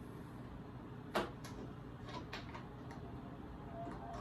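New camper shell lock and handle clicking as it is turned between the locked and unlocked positions: one sharp click a little over a second in, then a few lighter clicks.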